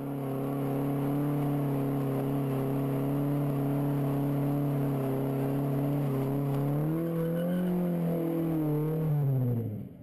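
Car engine held at high revs during a burnout, fading in and running steadily. About two-thirds through the revs climb and waver, then fall away as the sound fades out.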